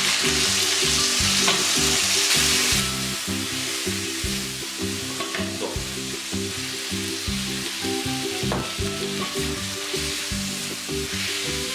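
Chicken pieces sizzling in hot oil in a wok as they are stir-fried with a wooden spatula, with a few sharp taps of the spatula on the pan. The sizzle is loudest for the first few seconds, then eases off. Quiet background music runs underneath.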